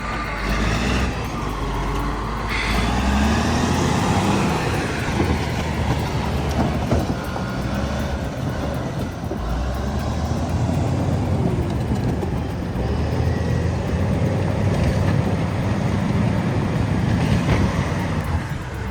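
Heavy logging machine's engine running steadily, with dense mechanical noise.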